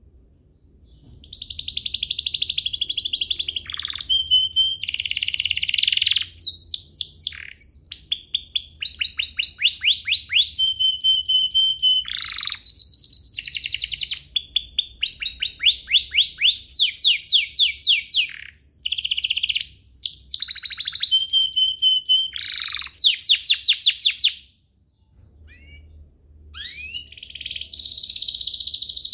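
Domestic canary singing a long, fast song of rapid trills and rolling repeated notes. The song stops briefly near the end, then picks up again.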